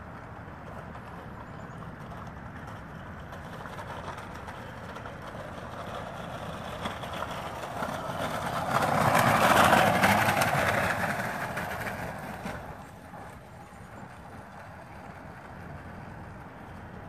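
Home-built electric scooter with a front hub motor and two small skateboard wheels at the rear passing close by on a coarse paved path. Its rolling noise swells over a few seconds, peaks about ten seconds in, then fades.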